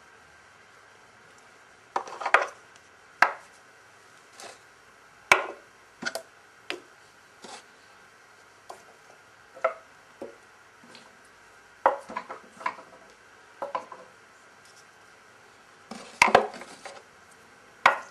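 Wooden chess pieces knocking and clacking on a wooden chessboard as they are moved: a dozen or so sharp clicks at irregular intervals, some single and some in quick clusters.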